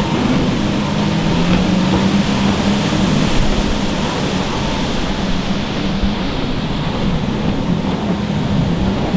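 Stand-up jet ski engines running hard at race speed, the engine pitch wavering up and down as the skis turn around the buoys, over a steady rush of spray and wind noise.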